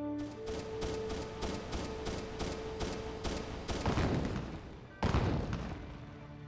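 Film gunfire sound effects: evenly spaced shots, about three a second, over a held musical tone, then two heavy blasts, the louder one about five seconds in, dying away.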